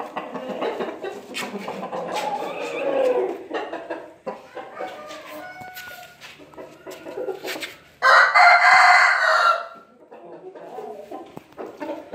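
Rooster crowing once, loud, about eight seconds in and lasting under two seconds, with softer clucking and scattered clicks around it.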